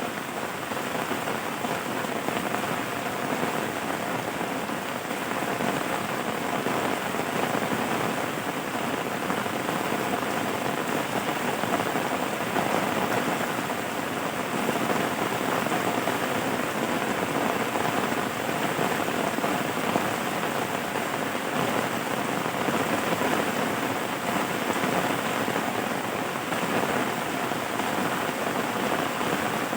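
Steady rain falling: an even, continuous hiss of many drops on a surface, with no thunder or other events.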